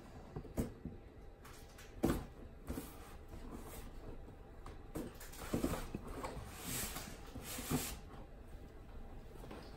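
Cardboard box being patted and scratched at its top: scattered taps and knocks, the sharpest about two seconds in, and a scratchy rustling of the cardboard from about five to eight seconds in.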